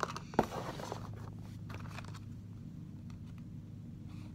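Small cardboard toy boxes being handled: a sharp knock about half a second in, then a brief rustle and scrape, and a few faint handling clicks over a low steady background hum.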